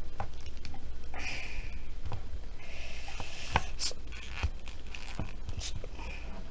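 Hard plastic parts of an action figure being handled: scattered clicks and taps with short stretches of rubbing and scraping as a swappable plastic hand is forced onto its wrist peg, over a low steady hum.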